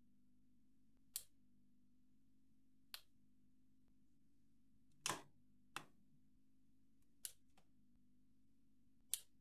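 Near silence broken by six sharp plastic clicks at uneven intervals, the loudest about five seconds in, as the Lego Technic model is handled.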